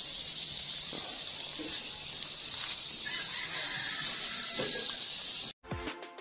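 Steady high sizzle of fatty oilfish steaks grilling over charcoal. It cuts off abruptly about five and a half seconds in, and electronic outro music starts just before the end.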